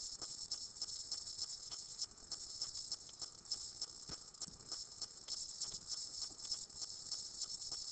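Stylus tapping and scratching on a tablet screen while numbers are written by hand: faint, quick, irregular clicks.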